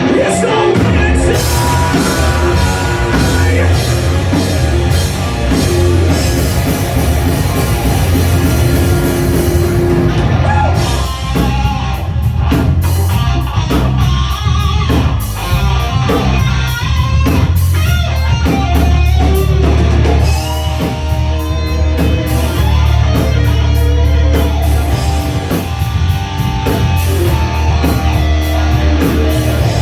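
Live rock band playing a song with distorted electric guitar, bass and drum kit, and vocals heard at times over the loud, steady band sound.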